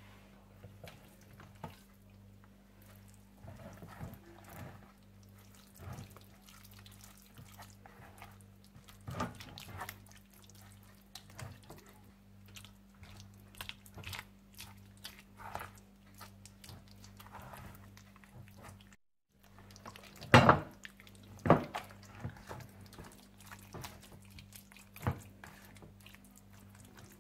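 Wet squishing and smacking of hands massaging a thick yogurt-and-spice marinade into a raw mutton leg, in short irregular strokes over a steady low hum. The two loudest smacks come close together a little past two-thirds of the way through.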